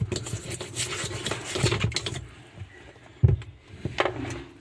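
Rubbing and scraping strokes while a washing machine part is cleaned, busy for about two seconds and then quieter, with one sharp knock partway through.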